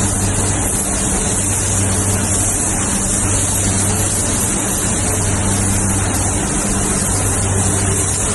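Steady machinery hum with a constant high hiss over it, unchanging throughout.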